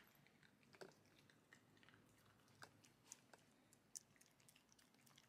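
Near silence with faint scattered crunches: small dogs chewing kibble.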